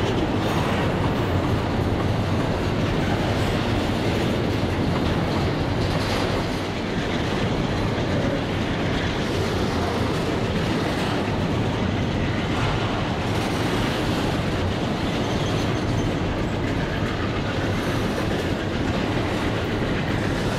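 Freight train rolling past close by: a steady rumble and clatter of steel wheels on the rails. Later, several diesel locomotives work past, their engines running under the wheel noise.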